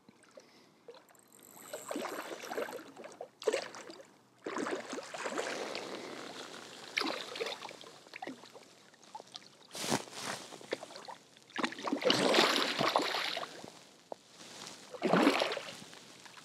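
Hooked trout thrashing and splashing at the water's surface in repeated bouts, the loudest splashing about three-quarters of the way through.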